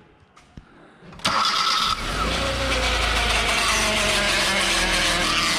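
Hyundai Veloster cold-started about a second in: the starter cranks, the engine catches and settles into steady running. A racket from the automatic transmission runs under it, with a whine that slowly falls in pitch. It is typical of this car's transmission fault on a cold start, which the mechanic puts down to a clogged transmission filter.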